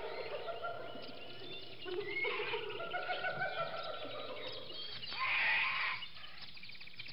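Overlapping animal-like calls and chirps, with a louder burst about five seconds in.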